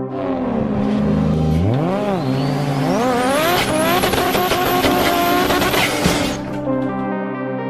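Sound effect of a car engine revving over a synth music bed: the engine pitch dips and climbs twice, then holds at high revs with a rising high whine, and fades about six seconds in, leaving the held music notes.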